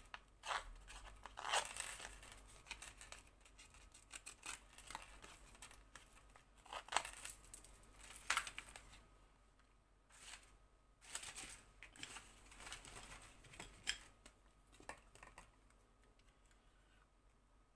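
Paper cut-outs and a card panel being handled and shuffled on a cutting mat: short, irregular rustles and light taps with quiet gaps between them.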